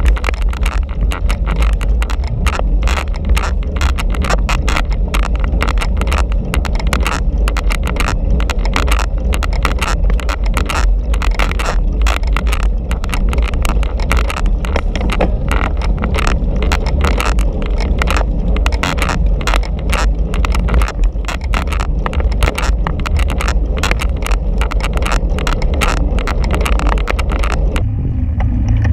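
Heavy wind buffeting and road rumble on a bicycle-mounted action camera riding fast in a road-race bunch, a dense, rough low roar with constant crackle. About a second before the end it suddenly turns duller.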